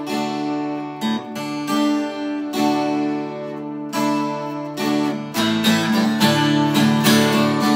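Twelve-string acoustic guitar playing an instrumental intro: chords strummed and left to ring, then steadier, quicker strumming from about five seconds in.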